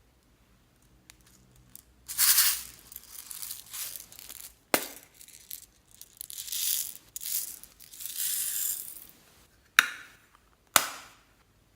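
Clear slime mixed with beads and floam being squished and kneaded by hand: crunchy, crackling squelches in several bursts, broken by three sharp pops.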